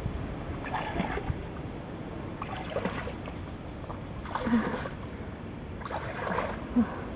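Splashing in shallow muddy water, coming in several short bursts about one and a half to two seconds apart, as water and mud are stirred by hand.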